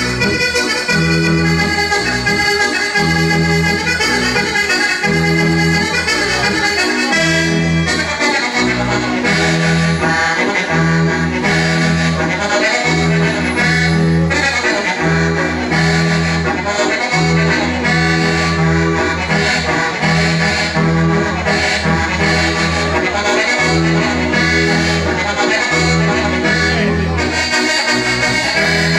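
Sardinian organetto (diatonic button accordion) playing a traditional logudorese dance tune (sa logudoresa seria): a busy melody over a steady, pulsing bass.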